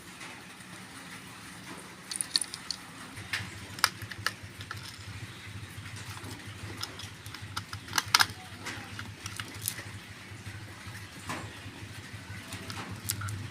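Scattered sharp clicks and knocks of a walkie-talkie being handled and worked on, loudest about four and eight seconds in, over a low steady hum that comes in about three seconds in.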